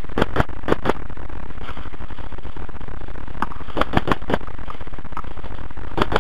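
Paintball markers firing in quick volleys of sharp pops: about four shots in the first second, a burst of five around the middle, and two more near the end. Under them runs a steady buzz from the helmet camera's microphone.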